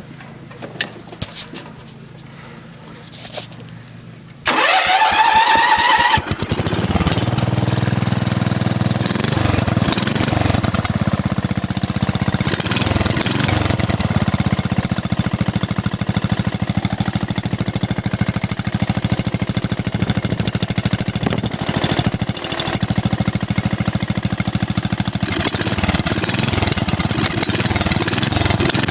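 Small lawn mower engine fitted with a homemade muffler starting: a few faint clicks, then about four and a half seconds in it fires with a brief rising whine as it revs up. It then runs steadily.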